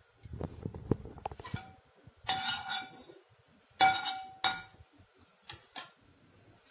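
Steel ladle clinking against a non-stick frying pan: two ringing clinks about a second and a half apart, then a lighter one. Dull knocks and handling noise come before them, and a few faint ticks follow.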